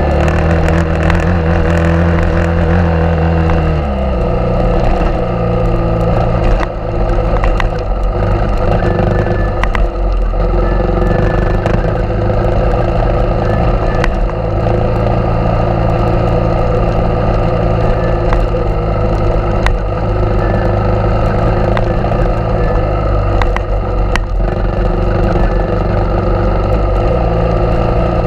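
Suzuki DR650's single-cylinder four-stroke engine running under way on a dirt road. The revs drop about four seconds in, then the engine pulls steadily, with scattered clicks over the noise.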